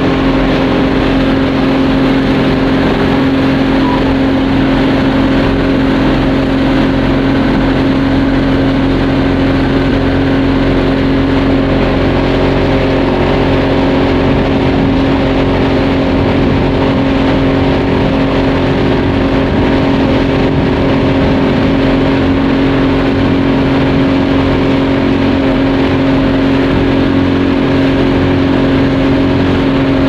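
Speedboat engine running steadily at constant speed, a continuous drone over a hiss of rushing water.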